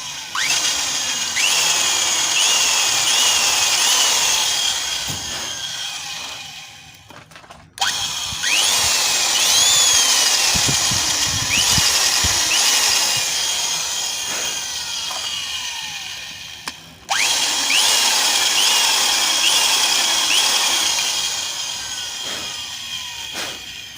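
Electric hand drill with a 4.3 mm bit drilling into a broken bolt in a cylinder head. It runs in three spells of several seconds with short stops between them, its pitch rising again and again as the trigger is squeezed.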